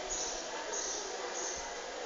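Steady outdoor background hiss with short, faint, high-pitched chirps repeating every half second or so, and faint distant voices.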